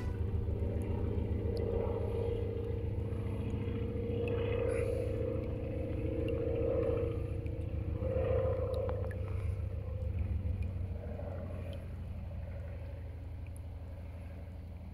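A distant engine running steadily as a low, pulsing drone that slowly fades away.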